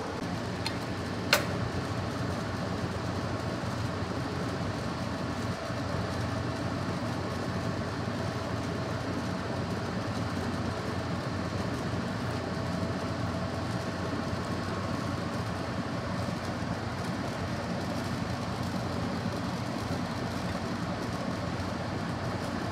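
A steady mechanical hum with faint steady tones in it. About a second and a half in, there is one sharp, ringing metallic clink of a utensil against the stainless-steel serving tray.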